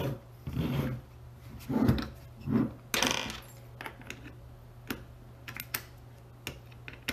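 Handling noise of a beetleweight combat robot's plastic drive pod and wheels on a desk. There are a few loud knocks and rustles in the first half, then light scattered clicks, over a steady low hum.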